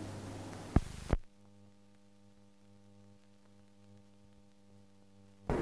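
Old newsreel soundtrack hiss and hum, with two sharp clicks about a second in, then a faint steady hum with no other sound. A much louder rush of noise starts right at the end.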